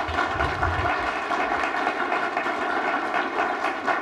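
Small audience applauding: steady, dense clapping.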